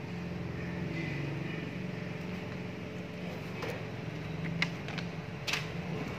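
A steady low mechanical hum. In the second half come a few light clicks and taps from the plastic housing of a photocopier developer unit being handled, the sharpest a little past the middle.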